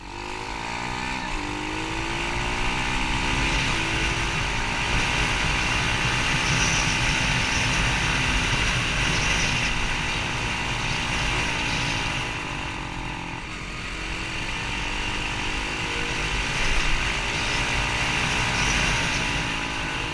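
SSR pit bike's single-cylinder engine running under way, its pitch rising and falling several times as the rider works the throttle and gears, with wind rumbling on the microphone.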